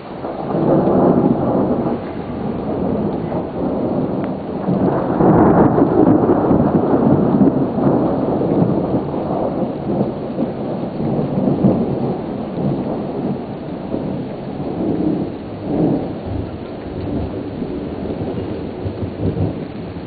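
Thunder rumbling during a thunderstorm over steady rain: a long peal that swells about a second in, surges louder about five seconds in, then rolls on and slowly eases.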